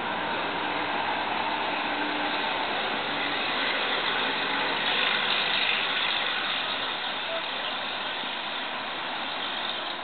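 Steady rushing background noise that swells a little about halfway through; no bird call stands out.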